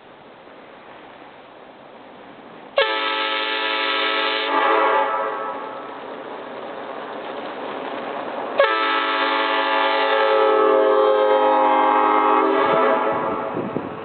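Homemade PVC five-chime air horn modelled on a Nathan Airchime M5 locomotive horn, sounding a multi-note chord. It starts suddenly about three seconds in and sags, is hit again harder about six seconds later, holds, then fades near the end. The chimes are tuned by ear, and their maker is not sure they are exactly on pitch yet.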